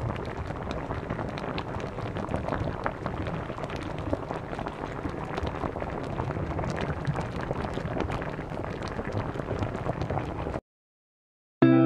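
Water boiling in a metal wok of vegetables, bubbling and crackling steadily, while a plastic spatula stirs through shredded cabbage. The sound cuts off suddenly near the end.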